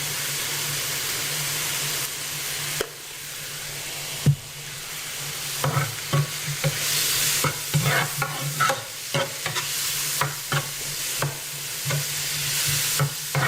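Leeks sizzling in hot oil in an electric skillet, with a utensil stirring and scraping against the pan. From about five seconds in, the utensil's clicks and knocks on the pan come often over the steady sizzle.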